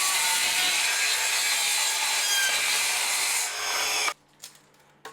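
Mitre saw running and cutting a strip of 12 mm plywood to length. It cuts off abruptly about four seconds in, followed by a few faint knocks.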